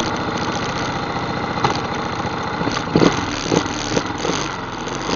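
ATV engine running steadily at idle, with a few short knocks about three to four seconds in.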